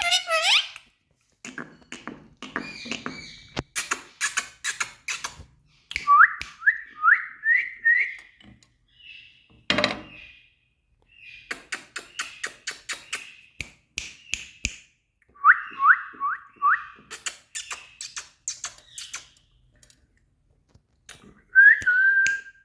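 Indian ringneck parrot whistling short rising notes in quick runs of four or five, among many sharp clicks.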